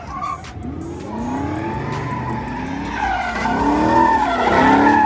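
A car's engine revving up and down several times while its tyres squeal in a steady screech on the pavement, the spinning tyres of a burnout or donuts, loudest near the end.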